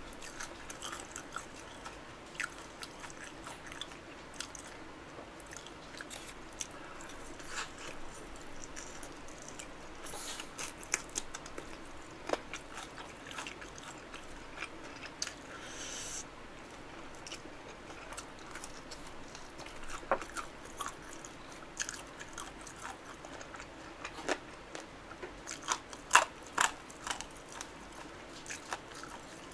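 Close-up crunching and chewing of crispy fried chicken coated in spicy sauce, with many small crunches and sharper ones about twenty seconds in and again near the end.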